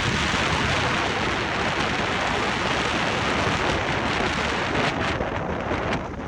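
Jet engines of a landing Korean Air Airbus A321neo (A321-272NX) as a steady loud rush, mixed with strong wind buffeting the microphone. The noise eases a little near the end.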